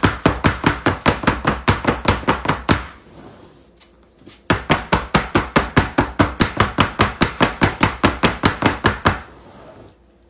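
Springform pan of cheesecake batter tapped in quick, even knocks, about five a second, in two runs with a pause between them. The tapping is meant to work air bubbles up out of the batter.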